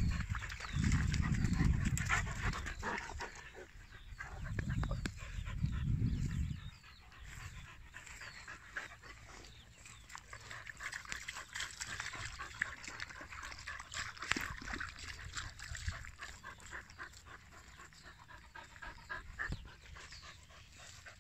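A dog panting, with many small ticks and rustles of paws and movement. Loud low rumbling buffets come and go over the first six seconds or so, then stop.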